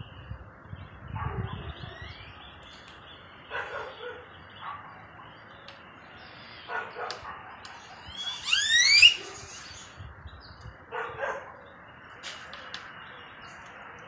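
Birds calling outdoors: short harsh calls at intervals, and about two-thirds of the way through a loud, quick series of rising calls.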